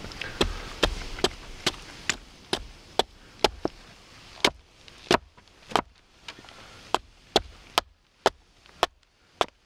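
A hand axe chopping into a birch spoon blank braced on a wooden chopping block, roughing it out. It makes a steady run of sharp chops, about two a second, with one short pause about four seconds in.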